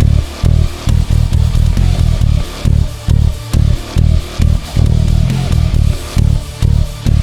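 Electric bass guitar playing a driving line of short, repeated low notes in a steady rhythm, over the song's backing music.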